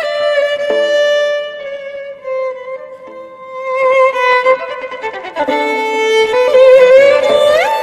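Background music: a violin playing a slow melody of long held notes, ending in a quick upward slide to a higher note near the end.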